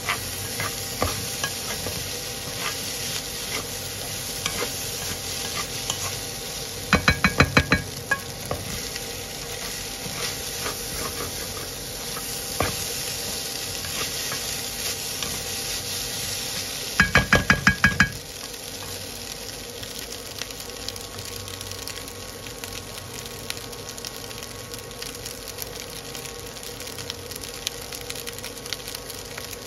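Fried rice sizzling in a non-stick pan while a wooden spatula stirs and scrapes it, with scattered small clicks. Twice, about seven and seventeen seconds in, there is a short run of quick ringing taps on the pan. After the second run the sound is quieter.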